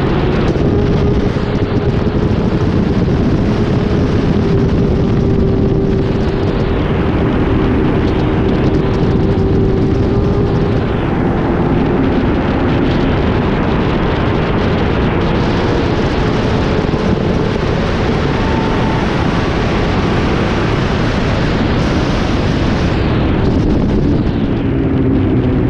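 Racing motorcycle engine held at high revs at about 100 mph, with heavy wind rush on the onboard microphone. The engine note holds nearly steady, shifting slightly partway through and falling near the end as the bike slows.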